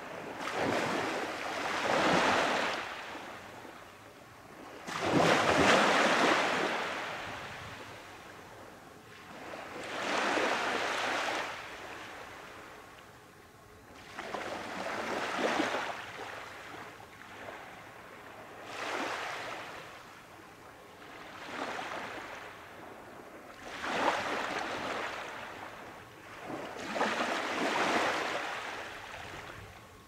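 Small waves breaking and washing up a sandy beach, about one every three to five seconds, each swelling and then fading away.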